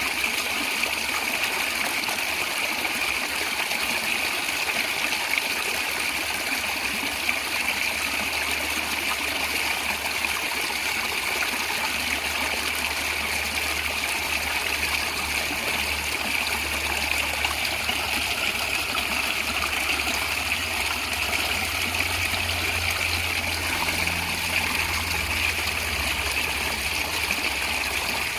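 Stream water gurgling and trickling steadily, with a faint low rumble underneath in the second half.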